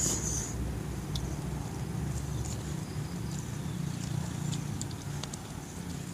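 Low rumble of a vehicle engine that fades away near the end, with soft scattered clicks of someone chewing and eating with his hands.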